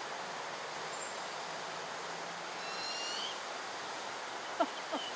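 Buffy fish owl fledgling giving a single rising, high-pitched begging call about halfway through, calling to be fed by its parents. Steady insect hiss underneath, and two short clicks near the end.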